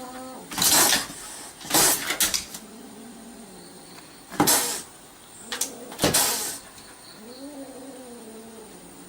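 A cat meowing: one drawn-out meow near the end, with several short noisy bursts such as rustles or hisses earlier on.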